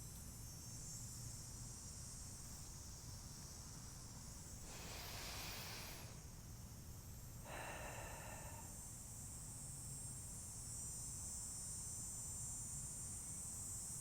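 Faint breathing: two audible breaths, about five and about eight seconds in, over a steady high-pitched hiss.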